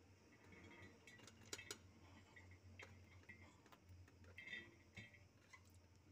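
Faint scattered clinks and taps of a utensil against a pan as cooked rice is added, over a low steady hum.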